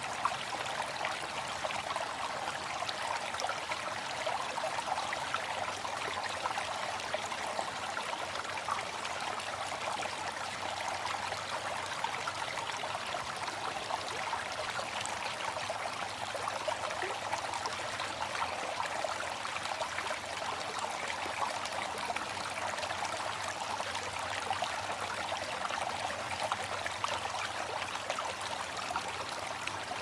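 Flowing water: a soft, steady rush with fine trickling splashes and no deep rumble.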